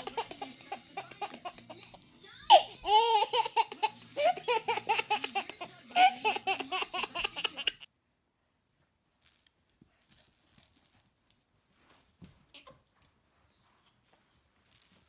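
A dog howling with long, gliding notes while a baby laughs, for about eight seconds. After a short gap come short bouts of faint, high jingling rattles.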